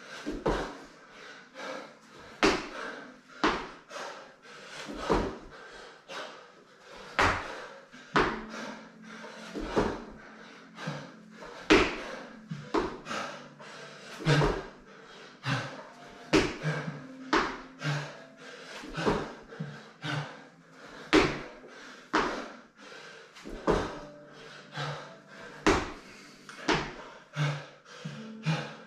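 A person doing burpees on rubber gym flooring: hands and feet slapping and thudding on the mat as they drop down, kick back and land from the jumps, in a repeating series of about one to two hits a second.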